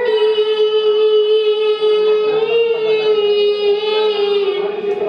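A high solo singing voice holds one long, slightly wavering note that drifts a little lower and ends about four and a half seconds in.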